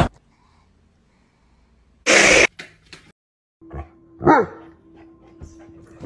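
Dogs vocalising: a short, harsh bark about two seconds in, then a few seconds later a single yelp that falls in pitch.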